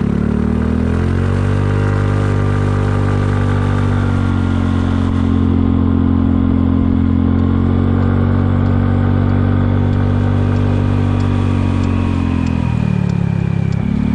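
Kymco People 250 scooter's single-cylinder four-stroke engine running through a slip-on muffler whose joint to the downpipe is sealed with JB Weld high-heat epoxy. It speeds up over the first couple of seconds, holds a steady cruise, and then drops in pitch as the throttle closes near the end.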